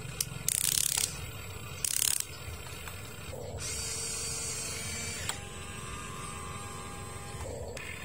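Huina RC excavator's small electric motors and gearboxes whirring and ratcheting as the boom and bucket work, with two short, loud scraping bursts about half a second and two seconds in as the bucket digs into sand. From about three and a half seconds in a steadier motor whine runs as the upper body swings round.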